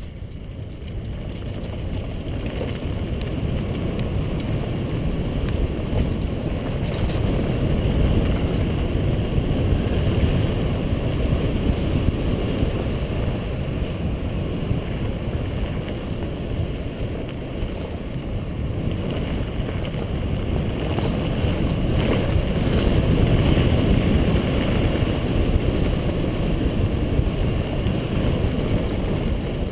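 Wind rushing over the camera microphone as a bicycle goes fast along a dirt trail: a steady, low rush that builds over the first several seconds and then holds.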